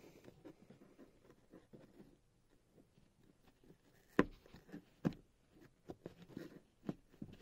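Plastic interior light housing snapping into the car's headliner clip as it is pressed home: two sharp clicks about a second apart past the middle and a softer one later, over faint rustling of gloved fingers.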